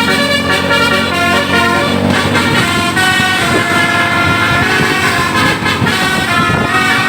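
A bus's 'basuri' telolet horn playing a tune, several horn tones sounding together and changing pitch every half second or so.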